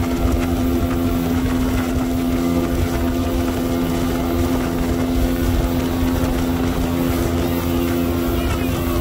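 A 19-foot Robalo's outboard motor running steadily at speed, a constant engine drone under the rushing wash and spray of the wake off the hull.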